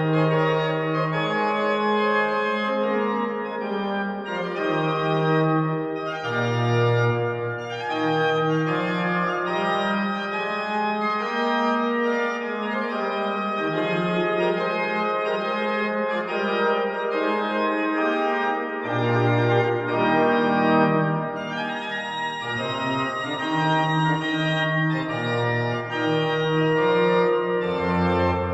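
Organ playing slow sustained chords, with low bass notes sounding at times and then dropping out.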